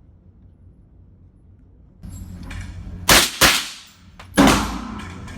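Three gunshots on a shooting range: two in quick succession about three seconds in, and a third about a second later, each with a short echoing tail.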